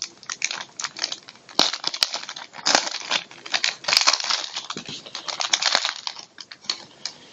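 A trading-card pack wrapper being torn open and crinkled in the hands, a run of irregular crackles and sharp little snaps.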